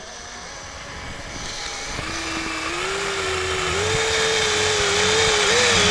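Cordless drill/driver driving a wood screw into softwood at low speed under pressure. Its motor whine starts about two seconds in and steps up in pitch, growing louder as the screw goes in, then cuts off abruptly as the screw seats.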